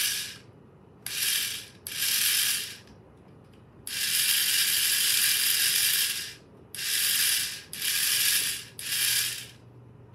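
A small mechanism ratcheting in seven bursts, from under a second to about two and a half seconds long, with short pauses between them.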